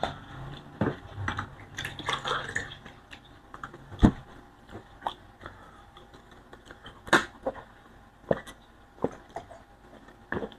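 Close-up eating sounds: chewing and mouth clicks, light knocks of fingers and dishes on a ceramic plate, and sips of water from a glass near the end. A few sharper knocks stand out, about four seconds in and about seven seconds in.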